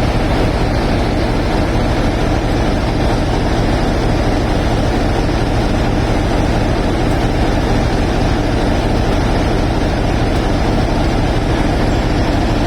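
Class 33 diesel locomotive's Sulzer eight-cylinder diesel engine running steadily, a loud, unchanging, deep engine note with no change in speed.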